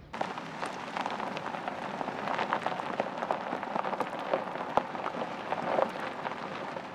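Vehicle tyres rolling over a gravel road: a steady crunching with many small pops and crackles of stones under the tread.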